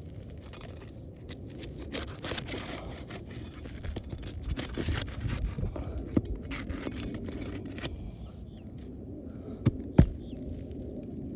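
Flat pry bar working under asphalt roof shingles, scraping and crackling as their sealed bond is broken, with a few sharp knocks. The loudest knock comes about ten seconds in.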